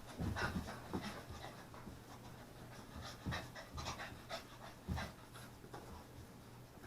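A dog panting in short, irregular breaths.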